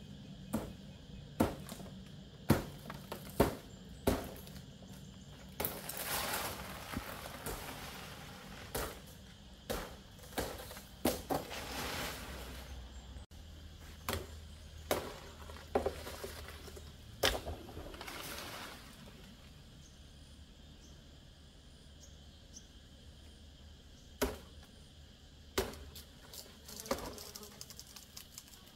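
Palm leaves being chopped with a blade: sharp strikes at irregular intervals, some in quick runs, with bursts of leaf rustling in between. The strikes thin out in the last third.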